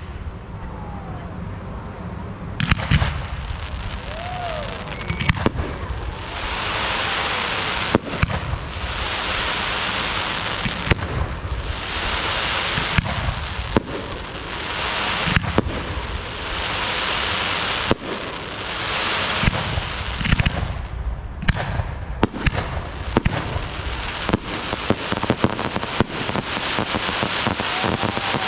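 Low-noise display fireworks: a string of soft launch thumps and small bursts at uneven intervals, over long stretches of dense hissing crackle from the burning effects.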